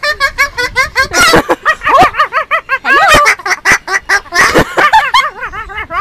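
High-pitched laughter: a long run of quick, short giggles, several a second.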